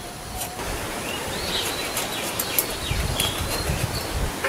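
Small birds chirping repeatedly, with scattered light clicks.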